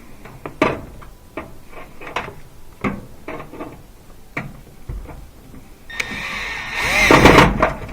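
A few light clicks and knocks of parts and tools being handled, then about six seconds in a power screwdriver whirs for a second or two, driving a screw back in to hold a newly fitted thermal fuse.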